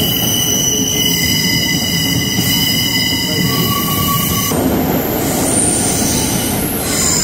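Passenger train at an underground station platform: a loud rumble with several high, steady squealing tones above it. The tones shift about four and a half seconds in.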